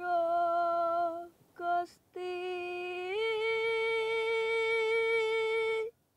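A solo voice singing a slow, plaintive line, "Ya Tuhan..." ("O God..."), in long, steady held notes. The last note steps up in pitch about three seconds in and stops abruptly near the end.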